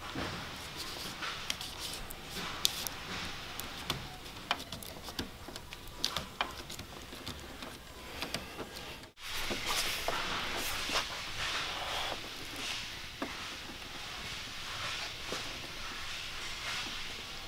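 Scattered small clicks, taps and rustles of hands pressing and smoothing a paper-backed adhesive decal strip onto a car's painted hood, over a steady background hiss. The sound drops out briefly about nine seconds in.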